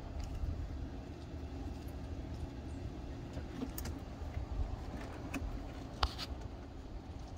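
Wind buffeting the microphone as a low, uneven rumble, with a few faint clicks near the end as a cat climbs the carpeted cat tree.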